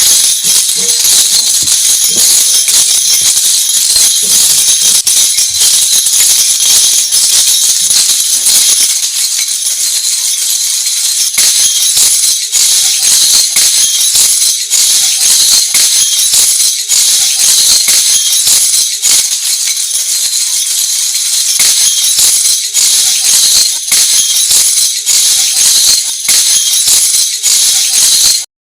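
A lezim, the wooden frame with loose metal jingle discs, shaken and struck in a steady rhythm, giving a continuous bright jangle of metal jingles with a sharp clash on each stroke. It cuts off abruptly at the very end.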